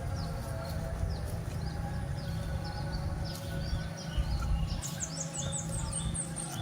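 Small birds chirping with short, repeated high calls, quickening into a rapid run of very high chirps near the end, over a steady low outdoor rumble.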